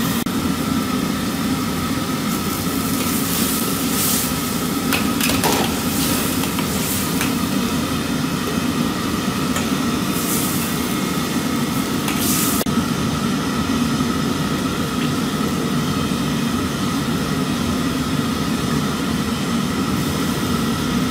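Steady noise of a gas wok burner under a large wok, with vegetables sizzling as they are stir-fried and a few sharp scrapes and clacks of a metal ladle and spatula against the wok.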